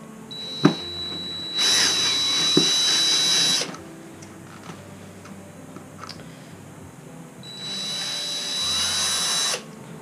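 Power drill backing a screw out of a saddle in two runs of about two seconds each, a steady high whine over the motor's whirr. A sharp knock comes shortly before the first run.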